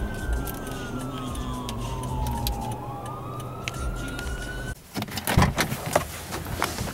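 A siren wailing, its pitch falling slowly and then rising again, over the steady hum of a car heard from inside the cabin. It cuts off abruptly about two-thirds of the way through, and a few clicks and knocks follow.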